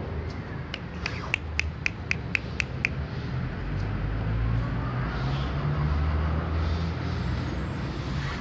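A quick run of about eight sharp, even clicks, some four a second, lasting about two seconds, over a steady low rumble of street traffic.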